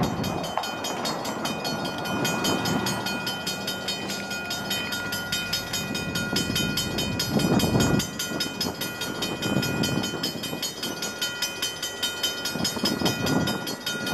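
A railroad bell starts ringing and keeps up a rapid, even ring of several strokes a second, over the low rumble of an EMD GP40-2 diesel locomotive approaching slowly with freight cars.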